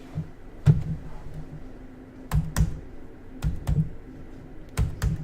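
Sharp clicks of fingers working computer controls to run the stream and slides: about seven clicks, mostly in quick pairs like double-clicks, over a low room hum.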